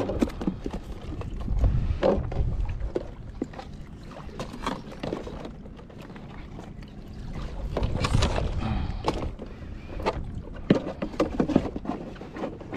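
Plastic tubs and a metal bowl knocking and scraping as they are packed into a plastic cooler box, with scattered clatters and a low rumble swelling twice.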